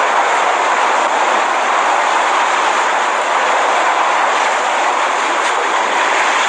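Hurricane-force wind and driving rain, a loud, steady rushing roar.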